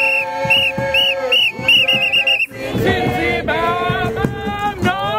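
A whistle blown in a run of short blasts that quicken about two seconds in, over a group of people singing together. The whistling stops about halfway through, and the singing carries on.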